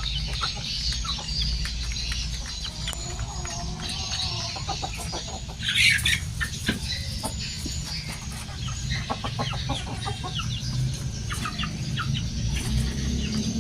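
A flock of farmed chickens clucking and calling continuously, with one louder call about six seconds in.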